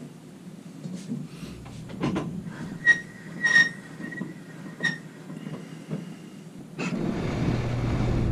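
Table saw's blade being tilted to a bevel angle: a few sharp metallic clicks and taps, some ringing briefly, then a steadier grinding rumble near the end as the tilt mechanism is cranked.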